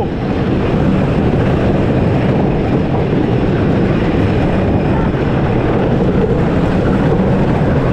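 Wooden roller coaster train running fast along its track: a loud, steady rumble and clatter of the wheels on the wooden structure.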